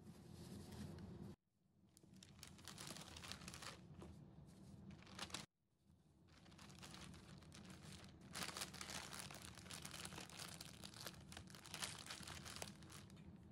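Paper towels and a clear plastic zip-top bag crinkling as paper-wrapped beetroots are handled and packed into the bag. The rustling stops abruptly twice and starts again.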